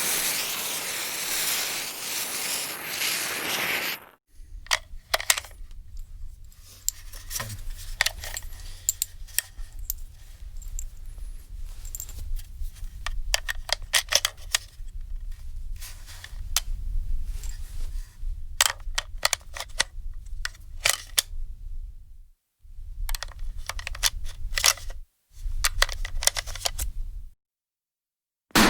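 A hissing whoosh for about four seconds, then a long run of irregular sharp metallic clicks and clacks over a low hum, broken by two short pauses: gun-handling sound effects.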